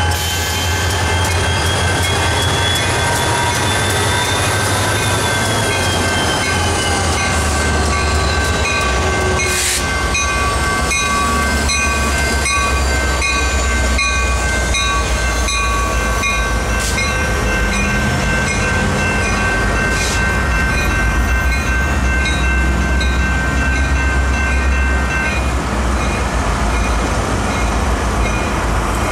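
A slow Union Pacific freight train passes over a grade crossing: the diesel locomotives' low engine rumble runs throughout, the wheels squeal with a high tone that rises and falls over the first several seconds, and a couple of sharp clanks come from the cars. The crossing bell rings steadily over all of it and stops about 25 seconds in, as the train clears and the signals go dark.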